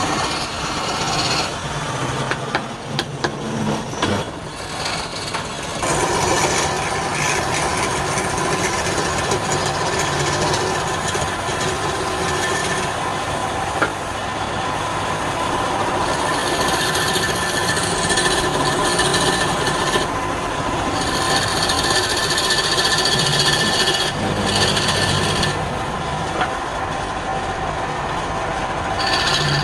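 Wood lathe running while a turning tool cuts the spinning wood: a continuous rasping scrape over a steady motor hum. It gets louder about six seconds in.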